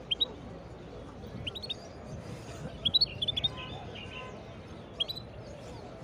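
Caged finch chirping in four short clusters of quick, high notes a second or more apart, the loudest about halfway through.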